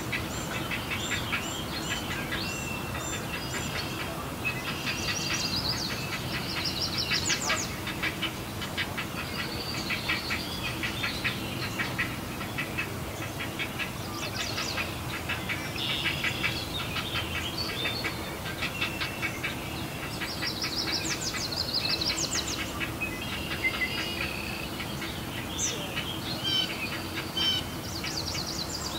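Great blue heron chicks' rapid, clacking calls, coming in repeated runs, over a steady low hum.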